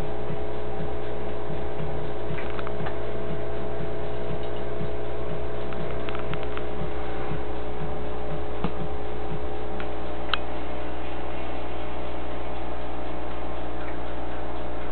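A steady electrical hum with faint irregular ticking and a few light clicks.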